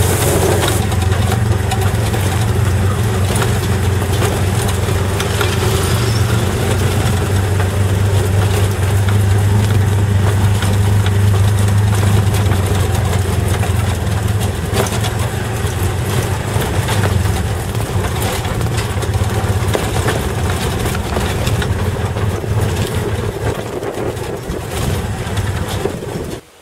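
Tuk-tuk (auto rickshaw) engine running steadily with a low hum while the vehicle drives, with frequent knocks and rattles; the sound cuts off suddenly near the end.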